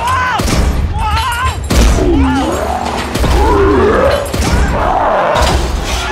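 Animated-cartoon monster-truck fight: several heavy booms and crashes as a giant monster truck slams the arena floor, the loudest about two seconds in. Wordless yells and music sound underneath.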